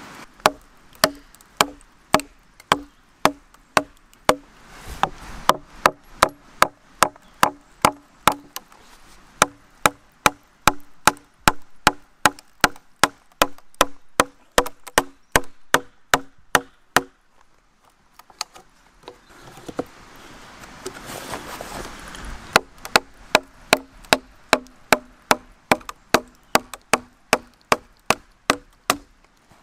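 An axe chopping into a fresh ash log: steady, sharp blows about two a second, each with a brief low knock from the wood. The blows break off for a few seconds past the halfway point, then resume at the same pace.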